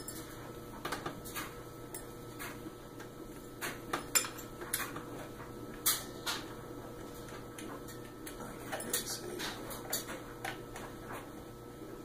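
Irregular small clicks and clinks of metal screws and fixture parts as screws are started by hand into a ceiling fan's light-kit housing.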